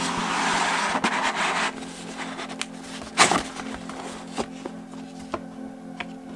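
Cardboard album packaging sliding and rubbing apart for about a second and a half, then a single sharp knock about three seconds in, followed by a few light taps as the album and box are handled.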